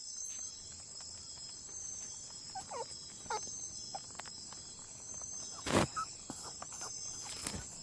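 Steady high-pitched insect chorus, like crickets, with a few short falling calls and one sharp knock about six seconds in.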